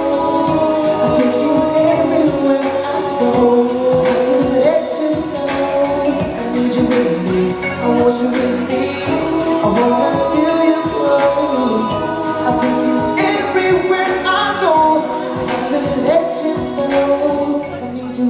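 Live vocal group singing sustained notes in harmony, with music underneath.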